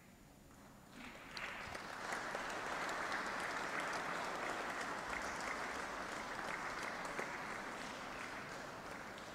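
Audience applauding. The clapping starts about a second in, builds to a steady level, then slowly tapers off.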